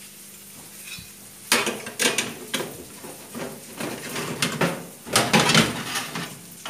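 Metal clattering and scraping: a baking tray being pulled out of a countertop oven with metal tongs, sliding and knocking on the oven's wire rack. It starts with a sharp clank about a second and a half in and goes on as a run of knocks and scrapes, loudest near the end.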